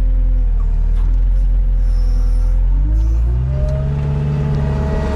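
A vehicle's engine running steadily, then rising in pitch about three seconds in as it picks up speed.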